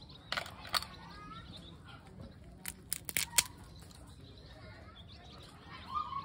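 Cooked mud crab shell being cracked and pulled apart by hand: two sharp cracks near the start, then a quick cluster of snaps around three seconds in, the last one the loudest. Birds chirp faintly in the background.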